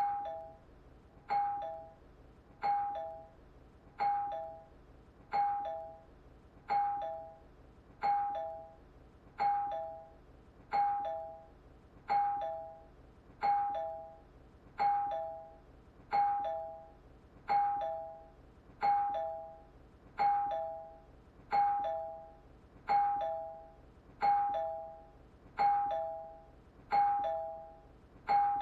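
Doorbell chime ringing a two-note ding-dong, high note then low, over and over about every second and a third. Each ring starts with a sharp strike and fades away before the next.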